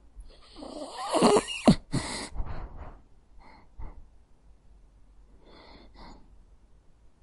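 A sleeping dog snoring and snorting: one loud snort with a falling pitch about a second in, then a few fainter breaths through the nose later on.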